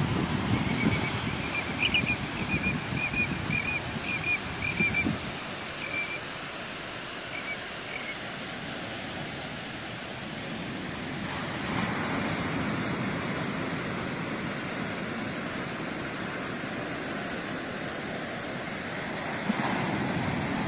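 Ocean surf washing on the beach, a steady rushing noise. Over the first several seconds a run of short high chirps repeats about twice a second, then thins out and stops.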